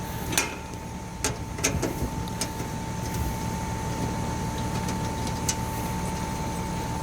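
A steady hum with a thin high tone, broken by scattered sharp metallic clicks and taps. These come several times in the first two and a half seconds and once more later, as the service panel of an outdoor AC condensing unit is worked off.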